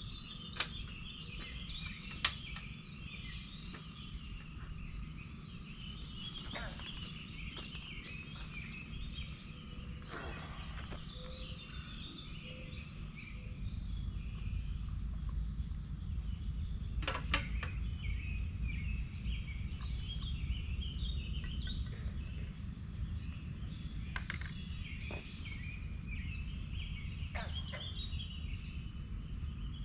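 Many birds chirping and calling at once, with a steady low rumble underneath that grows louder about halfway through.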